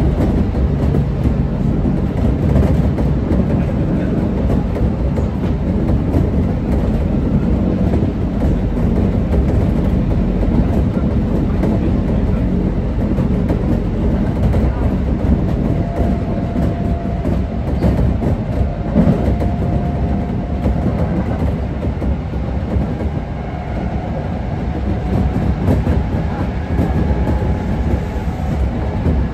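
Kintetsu 1620 series electric train running at speed: steady rolling noise of wheels on rail, with a faint whine that comes in about halfway through.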